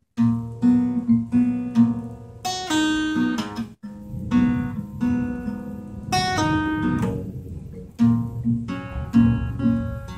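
Acoustic guitar strummed and picked in a steady rhythm, an instrumental passage with no singing, with a brief gap a little under four seconds in.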